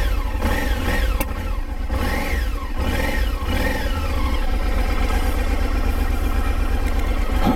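Motorcycle engine running, revved in about five short rising-and-falling blips over the first four seconds, then settling to a steady idle.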